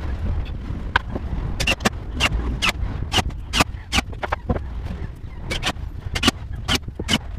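Irregular sharp knocks and taps on wooden cabinet panels, roughly two or three a second, over a steady low rumble.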